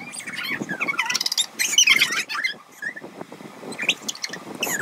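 Young women's high-pitched squeals and giggles in short, irregular bursts, as one has her face pushed into a bowl of water as a game forfeit.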